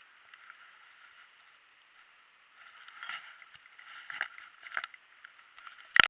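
Small knocks and rustles of handling gear in a plastic kayak: quiet at first, then a run of irregular light knocks about halfway through, and a sharp loud knock at the very end as a hand touches the camera.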